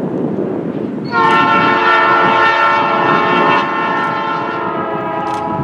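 Air horn of CP 403012, the diesel locomotive leading a yellow maintenance-of-way train, sounding one long blast that starts about a second in and holds for about four and a half seconds, a little softer in its second half.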